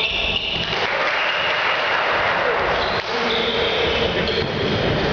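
Gym noise during an indoor volleyball match: a burst of clapping about a second in, lasting a couple of seconds, with players' shouts and a sharp ball hit near the middle.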